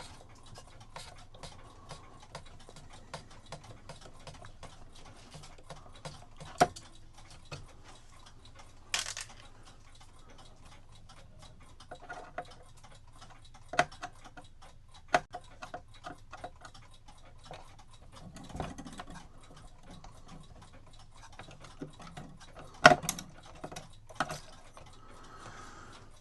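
Light clock ticking throughout, with louder metallic clicks and knocks now and then as the parts of an antique cuckoo clock movement are handled on the bench.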